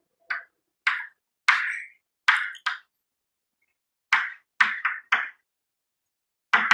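Chalk writing on a chalkboard: a quick series of short scratching and tapping strokes, with a pause of about a second midway.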